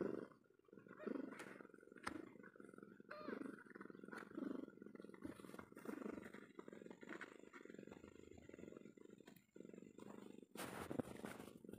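Mother cat purring steadily while her newborn kittens nurse against her belly, with a few short, high squeaks over the purr in the first few seconds.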